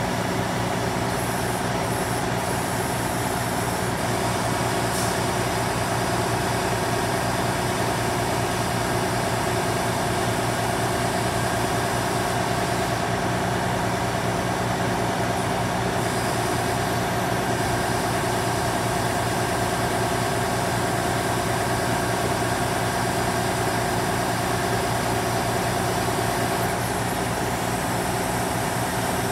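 The 12.7-litre six-cylinder Detroit Diesel of a 2004 Peterbilt 379 wrecker idling steadily, running the wrecker's hydraulics while the wheel-lift is raised.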